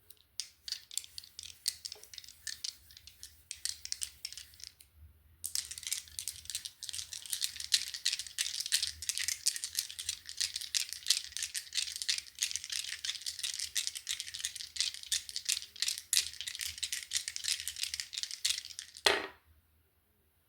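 Rune pieces clicking and clattering together as they are shaken and mixed, with a brief pause about five seconds in, then a louder clatter shortly before the end, after which they fall still.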